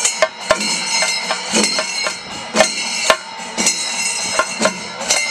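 Kerala temple-festival percussion, a chenda melam: stick-beaten drums strike sharp strokes over the constant ringing clash of ilathalam hand cymbals.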